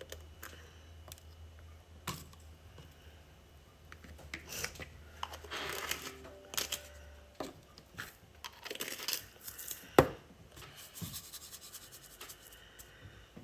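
Packaging being handled and torn open, crinkling and rustling in short spells, with scattered clicks and one sharp knock near the end.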